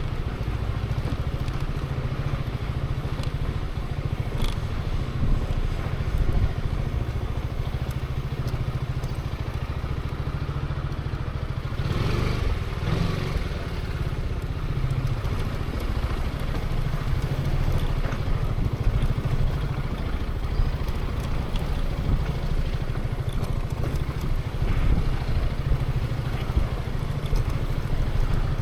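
Zontes 350E scooter's single-cylinder engine running steadily at low speed, with a brief louder, noisy rush about twelve seconds in.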